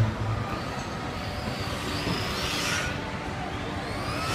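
Small electric radio-controlled model cars racing past, their motors whining in high tones that rise and fall as they go by, with a swell of rushing tyre noise as one passes close about two and a half seconds in.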